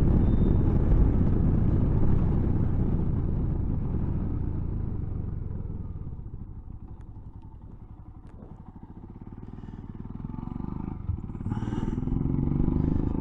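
Motorcycle engine running while riding; the sound eases off to a quieter low running about halfway through, then builds up again near the end.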